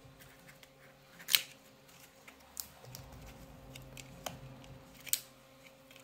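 Small sharp clicks and taps of a thin copper heat-shield cover being handled and set back over the SSD slot inside a laptop: about four distinct clicks, the loudest about a second in, with lighter ticks between.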